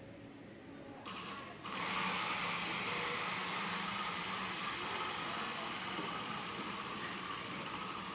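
Large prize wheel spun by hand, making a steady rapid whir that sets in about a second and a half in and slowly grows fainter.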